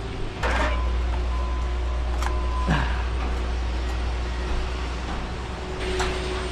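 Engine running with a steady low rumble that steps up about half a second in, with a few sharp knocks over it.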